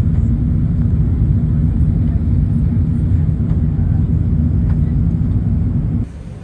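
Airbus A380 jet noise: a loud, steady low rumble with a faint hum. It drops abruptly to a quieter rumble about six seconds in.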